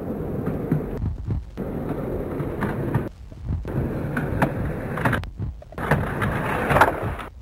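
Skateboard wheels rolling on concrete with sharp clicks of the board popping and hitting, in short stretches broken by brief gaps. It is loudest near the end.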